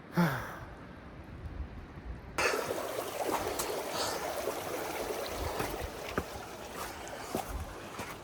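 A brief falling tone at the very start, then, from about two and a half seconds in, a stream of running water with scattered small clicks over it.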